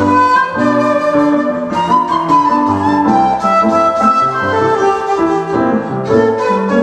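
A shakuhachi (a 1.6-shaku, seven-hole bamboo flute) plays a sustained, gliding melody over piano chords.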